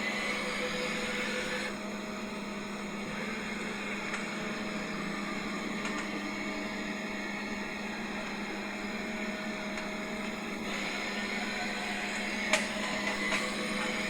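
CNC lathe running steadily, a hum with several steady tones, while the threading tool moves in and has not yet begun cutting. The tone shifts slightly about two seconds in and again near the end, with a single sharp click shortly before the end.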